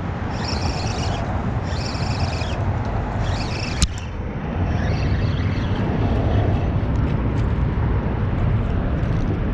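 A fishing reel cranked in short bursts about a second long, three times over the first four seconds, as a hooked crappie is reeled in, with one sharp click about four seconds in. Under it runs a steady low rumble of wind on the microphone.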